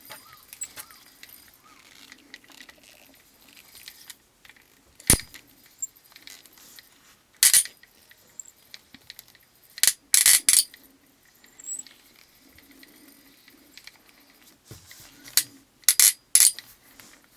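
Daiwa Legalis LT5000D-CXH spinning reel being cranked with the spool pointing down: a faint gear whir broken every few seconds by sharp clicks, some in pairs. This is the reel's fault: a catching, jammed clicking each time the spool travels down.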